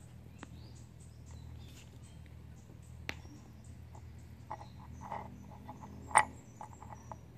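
A small metal amulet medal being handled and turned over on a wooden tabletop: scattered light clicks, with one sharp click about six seconds in as it is flipped. A steady low hum runs underneath.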